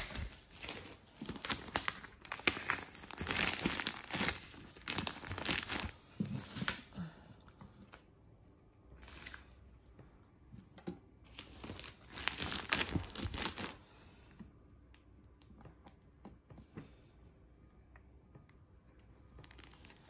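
Clear plastic wrapping being torn and crinkled as it is pulled off a new cutting machine, in bursts of rustling: heavy through the first six seconds, again briefly around nine seconds and twelve to fourteen seconds, then only faint handling noise.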